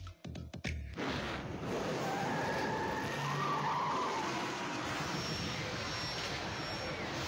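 Race-car sound effects in a TV channel ident: cars speeding with tyres squealing, a dense steady rush of noise that starts about a second in, after the last few beats of electronic music.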